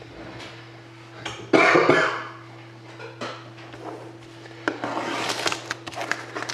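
Hands handling a sealed, shrink-wrapped cardboard card box on a tabletop: scattered knocks and taps, a louder rustling scrape about one and a half seconds in, and a run of small clicks and crinkles over the last two seconds. A steady low hum runs underneath.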